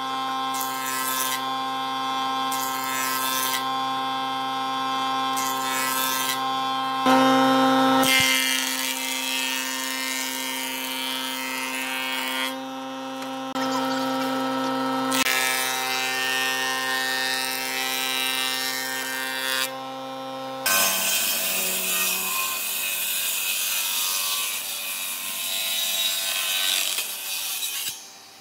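Thickness planer running and planing an old salvaged boat timber, a steady machine hum that swells and dips as the board feeds through. About twenty seconds in it gives way to a harsher table saw cutting through the timber.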